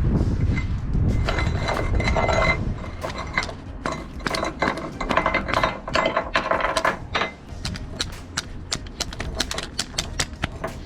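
Metal tie-down hardware clicking and clinking: the ratchet and hooks of wheel straps being handled, with many irregular sharp clicks that grow denser in the second half. Wind rumbles on the microphone over the first couple of seconds.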